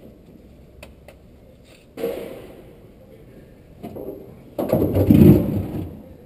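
Hand-held electric drill running in short bursts on the rusted screws of a VW bus popout window frame: a brief run about two seconds in that winds down, then a longer, louder run near the end.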